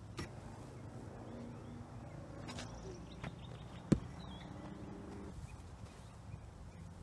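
Quiet outdoor background with a faint hum, broken about four seconds in by one sharp click or knock.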